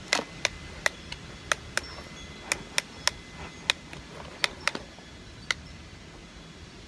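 Sharp, irregular clicks and taps of hard plastic toy parts knocking together as a toy fire truck and its ladder pieces are handled, about a dozen in quick succession before they stop.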